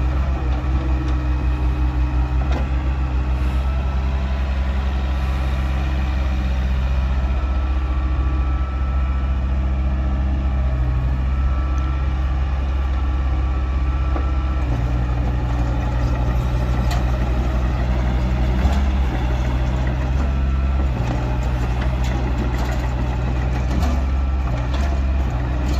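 Mini excavator's diesel engine running steadily, its note shifting several times in the second half. A few short clicks or knocks come near the end.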